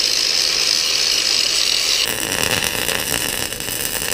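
Angle grinder grinding on a steel differential housing, a steady high whine. About halfway through it gives way abruptly to the steady crackle of arc welding as a breather fitting is welded onto the differential.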